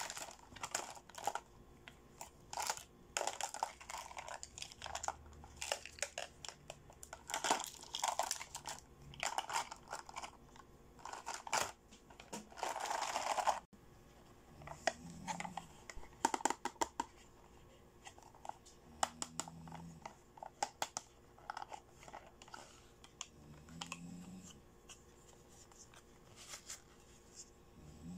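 Small plastic doll accessories being handled, clicking and tapping against each other, with a longer crinkling rustle just before the middle that stops abruptly. After that, quieter handling with sparse light clicks.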